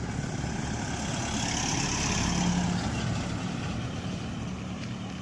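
An engine running steadily with a low, even rumble and a hiss that swells slightly in the middle.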